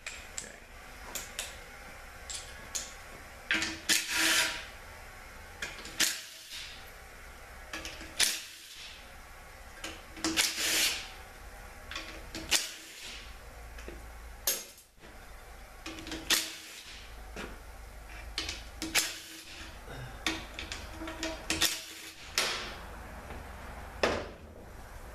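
Hand tools working on a heavy-truck automatic transmission during teardown: many scattered sharp metal clicks and taps, with several short hissing bursts lasting about a second each.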